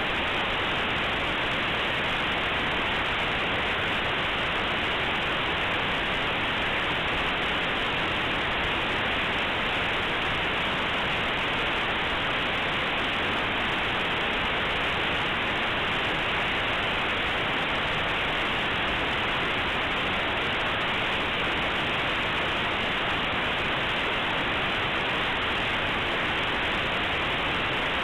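Compressed Linux kernel data played as raw audio through aplay: a steady, unchanging hiss of white noise, because compressed data is close to random. It is muffled, with nothing above about 4 kHz, as aplay's default 8 kHz playback allows.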